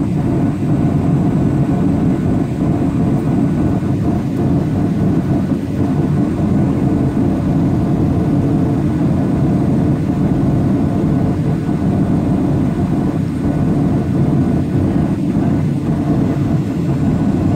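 Steady cabin noise of a jet airliner in cruise: an even, low rushing sound of engines and airflow heard from inside the cabin.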